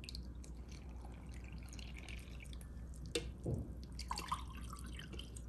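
Water being poured from a cup into a bowl, trickling and dripping with small splashes, and a light knock about three seconds in.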